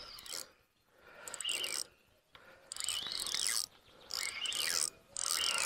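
Fishing reel working while a hooked fish is played, in four short mechanical bursts of just under a second each with short pauses between.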